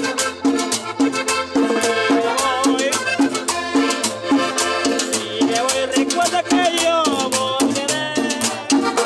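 Background salsa music with a steady beat of percussion over a repeating bass line, and a melody that slides in pitch through the middle.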